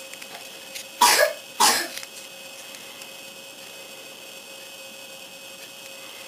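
A person coughs twice in quick succession about a second in. After that there is only quiet room tone with a faint steady electrical hum.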